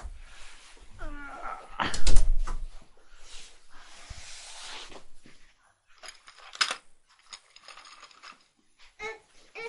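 Knocks and rustling of movement across a carpeted room, with a short whining cry about a second in and a loud thump about two seconds in. A brief baby vocalisation comes near the end.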